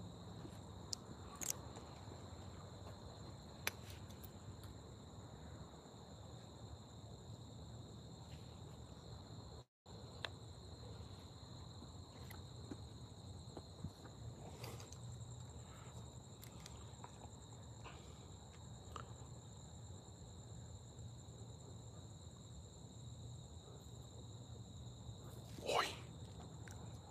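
Crickets trilling steadily in two high, unbroken tones, with a few faint clicks and one short, louder sound near the end.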